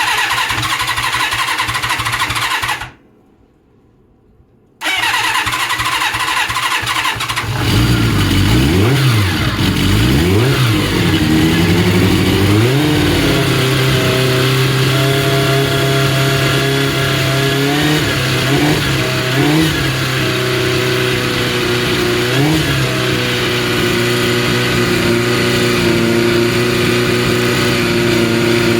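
Kawasaki Z400FX inline-four motorcycle engine being started after a rebuild. The starter cranks, pauses briefly, then cranks again until the engine fires. It is revved up and down several times, then settles into a steady idle with a few short throttle blips.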